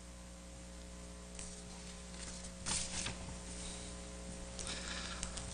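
Steady electrical mains hum picked up through a desk microphone, with a couple of brief soft rustles about three seconds in and again near the end.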